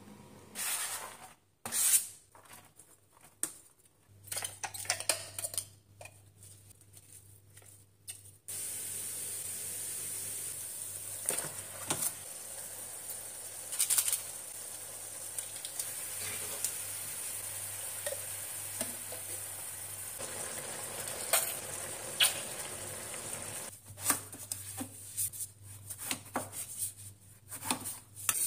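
Minced meat sauce frying in a pan: a steady sizzle for most of the clip, with the clicks and scrapes of a slotted spatula stirring it. Near the start and again near the end there are separate sharp taps and clatter, the last of them a knife on a cutting board.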